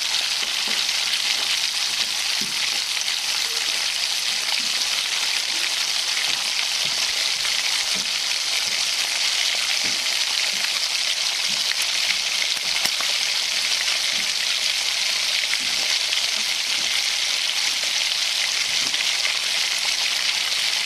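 Food frying in hot oil in a pan, a steady even sizzle, with a few faint taps.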